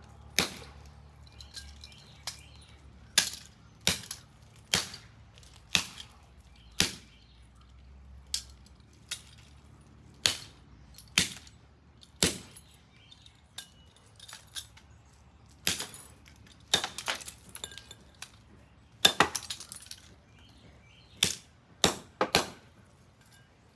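An axe repeatedly striking and chopping through an old, rusted standard electrical receptacle on concrete: sharp cracking hits about once a second, with a few quick double and triple strikes in the second half.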